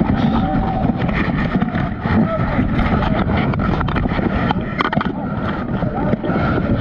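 Loud, muffled rumbling and rubbing close to the microphone, with many short sharp knocks and faint voices in the background.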